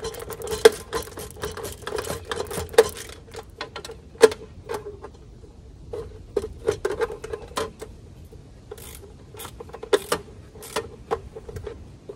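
A wrench working the bolts of a deer feeder's motor housing: irregular metallic clicks and taps with a slight ring, quick and close together for the first few seconds, then sparser, with another run of clicks near the end.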